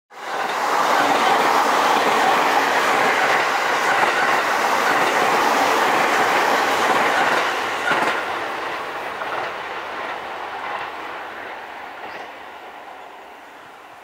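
Sotetsu 11000 series electric train passing close at speed: a loud, steady rush of wheel and running noise with wheel clatter on the rails. About eight seconds in, as the last car goes by, the sound begins to fade steadily away.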